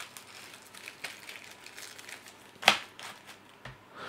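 Phone packaging and accessories being handled and packed back into the box: faint rustling and small taps, with one sharp knock a little past halfway.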